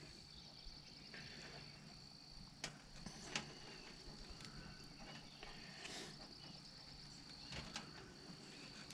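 Faint, steady high-pitched insect chirring, with a few light clicks as a stainless steel cable and its wire rope clamps are handled at the well pump's eyelet.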